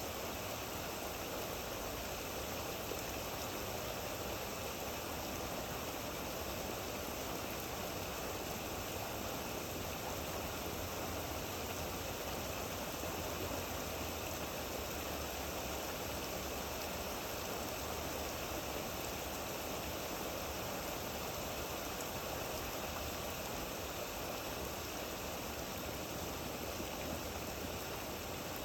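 Steady rain falling, an even unbroken hiss with no separate drops standing out.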